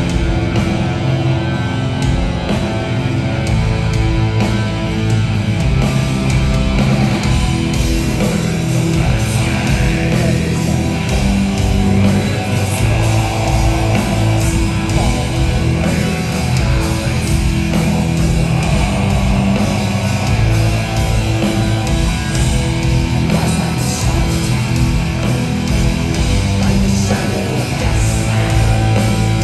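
Live heavy metal band playing a steady, unbroken passage with electric guitars.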